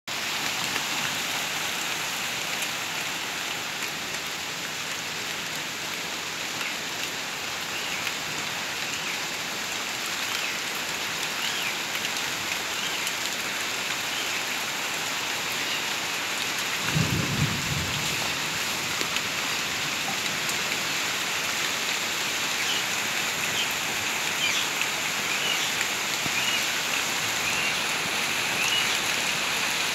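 Steady rain falling on corrugated roof sheeting, a continuous even hiss, with a brief low rumble just past the middle.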